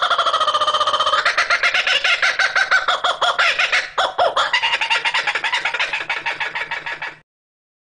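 Laughing kookaburra giving its laughing call: a fast run of repeated notes, about eight a second, that cuts off suddenly about seven seconds in.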